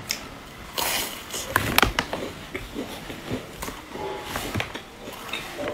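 Close-miked crunching as a large round crisp biscuit is bitten into and chewed: a string of sharp cracks, loudest about a second and a half to two seconds in, then softer crunching chews.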